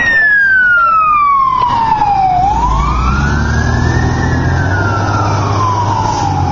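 Fire rescue truck's siren in a slow wail, falling, rising and falling again over the few seconds, with the truck's engine rumbling underneath and growing louder from about a third of the way in.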